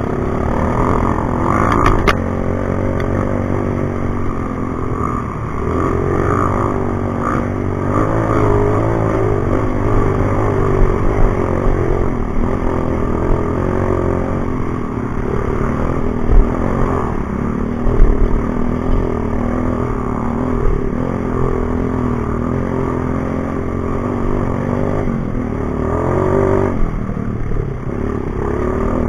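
Dirt bike engine running off-road, its revs rising and falling, with clattering and a couple of sharp knocks a little past halfway.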